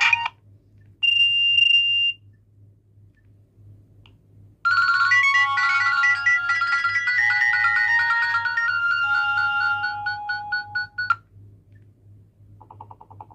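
Nokia 9300 Communicator ringtones playing from the phone's loudspeaker. A tune cuts off at the very start and a short high beep follows about a second in. A melodic ringtone then plays from about five seconds to eleven seconds and stops abruptly, and a quieter, buzzy tune begins near the end.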